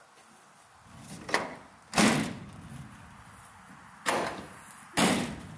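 Rear doors and latches of an enclosed cargo trailer being shut: a light knock about a second in, then three loud slams, each dying away quickly.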